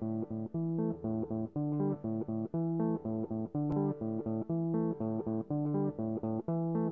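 Background music: a plucked guitar playing quick, evenly spaced short notes over a bass line.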